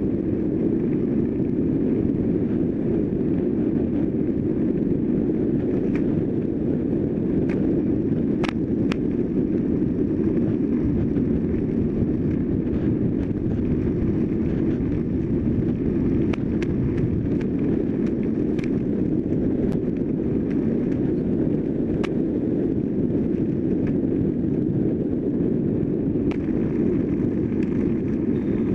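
Wind rushing over the microphone of a camera mounted on a road bike ridden at racing speed, a steady low rush with tyre and road rumble, broken by scattered sharp clicks and knocks.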